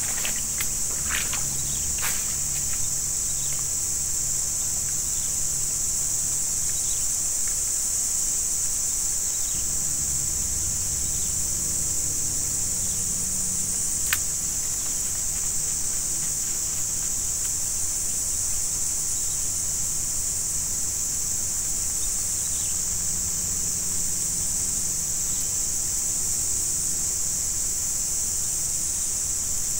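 Steady, high-pitched chorus of insects chirring without a break. A few sharp clicks come in the first couple of seconds and one more about halfway through.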